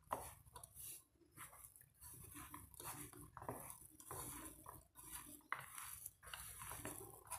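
A hand squishing and rustling through grated potato mixed with spices and flour in a bowl, in faint, irregular bursts.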